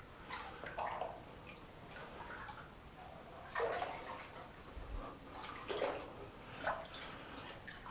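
Water sloshing and splashing as a person wades through a flooded mine tunnel, with a few louder splashes in the second half.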